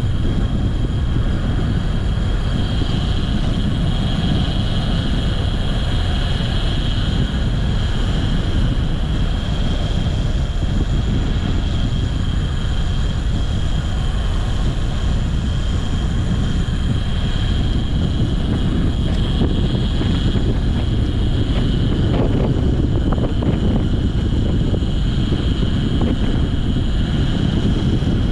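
Steady wind rushing over the microphone of a moving bike, a loud low buffeting with a faint steady high whine above it.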